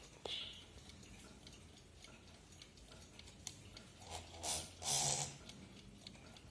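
1940s JaZ wind-up alarm clock ticking faintly, with a brief louder noise about five seconds in.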